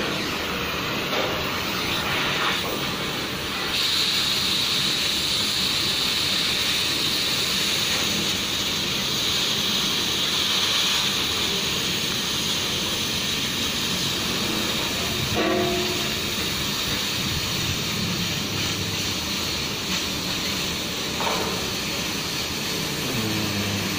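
Oxy-fuel cutting torch hissing steadily as its oxygen jet cuts through steel plate, with a brighter, sharper hiss from about four seconds in.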